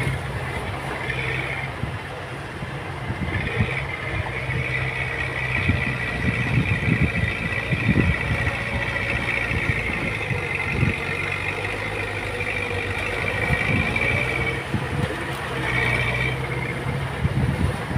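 Heavy earthmoving machinery running with a steady low diesel drone. A high-pitched whine rises in about three seconds in and drops out near fifteen seconds. Several sharp clanks come in a cluster a few seconds in.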